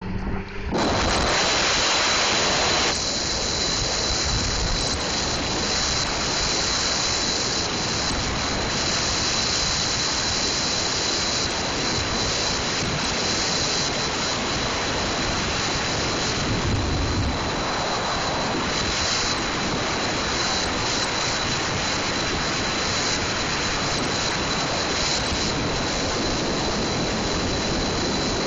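Steady rushing road and wind noise of a car driving at speed, with a thin steady high tone over it.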